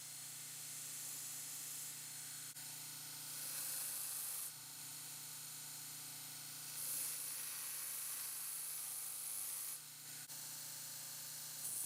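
Power sander or grinder humming steadily, with abrasive hissing against the workpiece in passes of one to three seconds.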